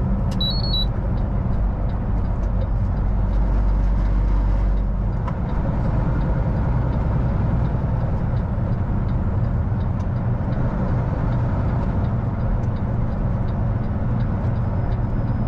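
Semi truck cruising on a highway, heard from inside the cab: a steady low engine drone with tyre and road noise. A brief high beep sounds just after the start.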